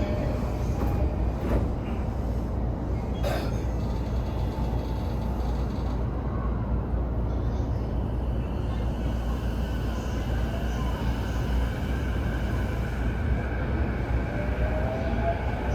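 Interior running noise of a Chūō Line rapid electric commuter train: a steady low rumble of wheels on rail, with two sharp clicks a few seconds in. Near the end, a faint motor whine rises in pitch.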